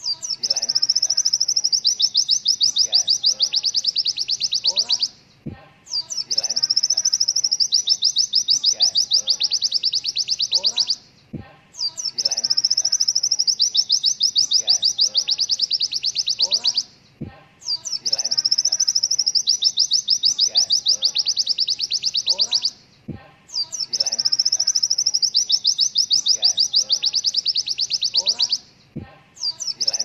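Pleci (white-eye) song used as a training master: a high, very rapid trill of fast repeated notes, the 'tembakan' style. Each trill runs about five seconds, then breaks off briefly, and the same phrase comes back about five times.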